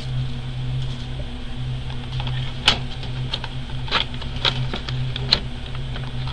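Wooden colored pencils and their metal tin being handled: a few short, sharp clicks and taps, over a steady low hum.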